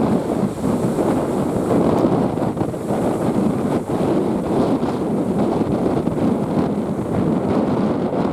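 Strong wind buffeting the microphone in a steady, fluctuating rumble, with the sea's waves beneath it.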